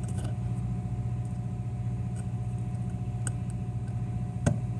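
Steady low background hum with a few faint light clicks and one sharper click near the end, from small phone screws and a screwdriver being handled.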